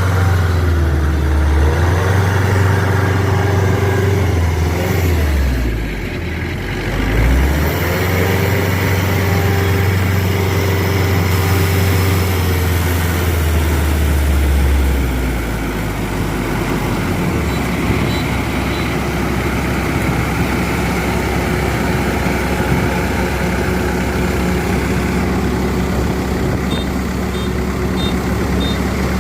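Kubota DC93 Extra combine harvester's diesel engine running hard, its pitch dipping for a couple of seconds about five seconds in and then recovering. Later it settles to a lower, steady running note.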